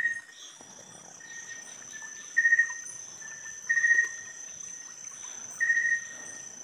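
Night insects calling: a loud short trill repeated four times, about every one and a half to two seconds, over a steady high-pitched insect whine.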